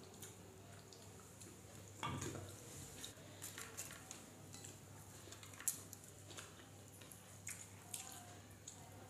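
Faint clicks and squishes of fingers mixing and scooping rice on steel plates, with a louder soft knock about two seconds in.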